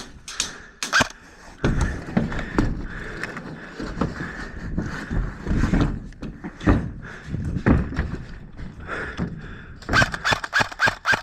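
Irregular thuds and rustling of a person moving about on foot, with a quick run of sharp clicks near the end.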